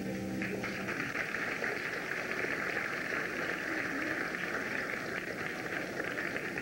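Audience applause, starting about half a second in, as the last sung note of a children's choir dies away.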